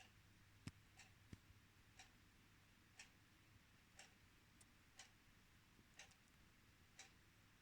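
Faint ticking of a clock, one tick a second, over a low steady hum. Two louder knocks come around a second in.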